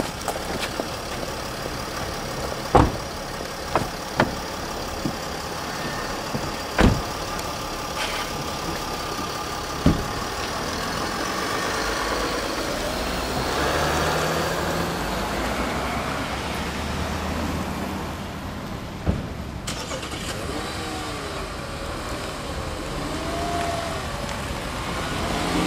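Car doors shutting, several sharp thumps spread over the first ten seconds, then a car engine running as the car pulls away slowly.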